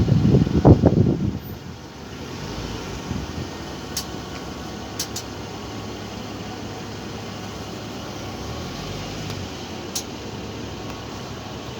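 Mercedes-Benz GLE 450 with the noise from its front wheel: a louder low rumble for about the first second and a half, then a steady even hum with a few faint clicks.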